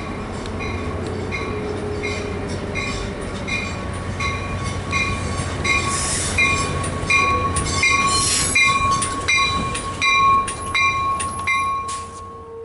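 Commuter train pulling into the station, its wheels clicking over rail joints with rushes of wheel and brake noise from about halfway in. Throughout, a bell dings steadily about twice a second.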